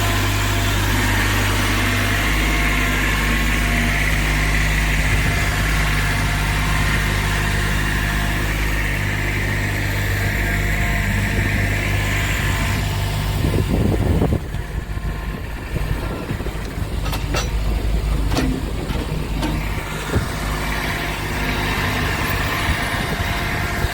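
Kubota B7500 compact tractor's diesel engine running steadily while loading dirt. About fourteen seconds in, the steady engine note drops away and scattered knocks and clatters follow.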